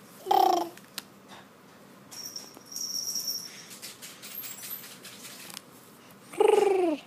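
A baby's 'yeti noise' vocalizations: two short calls, each about half a second and falling in pitch, one just after the start and one near the end. Between them a faint high thin tone lasts about a second.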